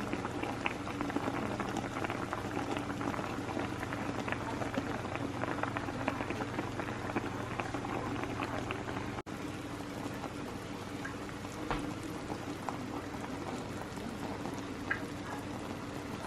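Beef boiling in a pot of soy-sauce broth, with a steady bubbling full of small pops and crackles. A steady low hum runs underneath.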